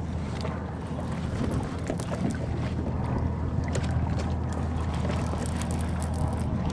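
Wind on the microphone and water against a kayak, a steady low rumble with scattered small clicks and knocks.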